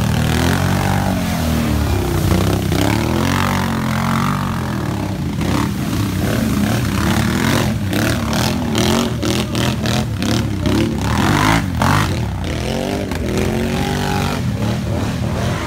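ATV engines revving and easing off in repeated surges as quad bikes churn through deep mud and water, the pitch rising and falling with the throttle. A stretch of clatter runs through the middle.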